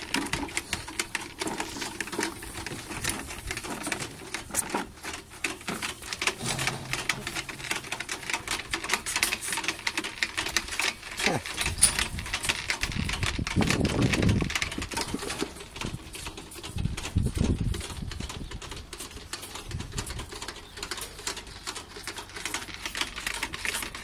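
Several calves drinking milk from plastic buckets, making a dense, continuous run of rapid slurping and clicking sounds, with a few louder low, muffled sounds around the middle.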